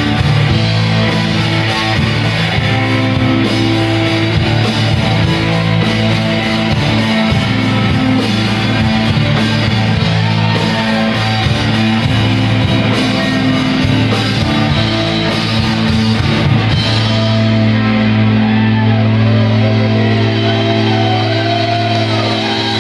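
Rock band playing live, loud electric guitars over a drum kit. About three-quarters of the way through the drums stop and the guitars ring on in a held, droning chord with wavering high tones as the song winds down.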